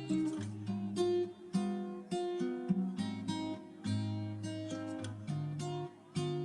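Background music: an acoustic guitar playing chords, each struck and left to ring, a new chord roughly every half second.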